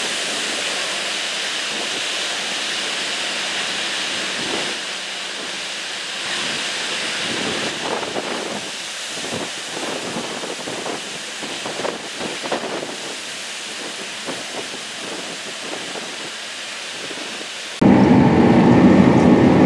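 CLAAS Lexion 760TT combine harvesting wheat: a steady, high rushing hiss, broken by uneven rumbles through the middle. About 18 s in it cuts abruptly to a louder, steady machine drone heard from inside a cab.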